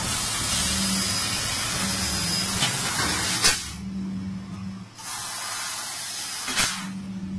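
Fiber laser tube-cutting machine's assist gas hissing in two long bursts, the second starting about five seconds in. Each burst stops with a click, over a low machine hum that comes and goes.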